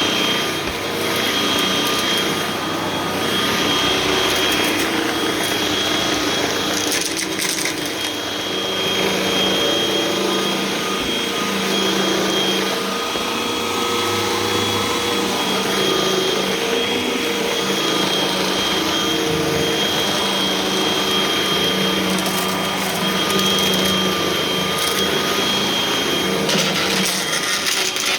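Hoover vacuum cleaner running with its brushroll on: a steady motor whine over rushing air, swelling and easing slightly in loudness.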